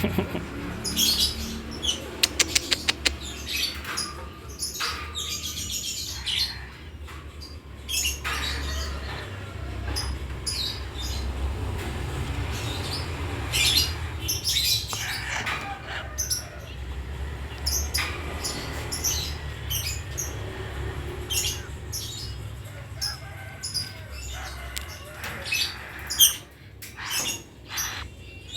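Birds chirping and squawking in short high calls throughout, with wing flapping and a quick run of sharp clicks about two seconds in.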